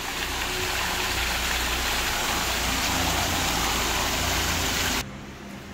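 Steady, loud rushing noise with a low engine-like hum beneath it, cutting off abruptly about five seconds in to a quieter low hum.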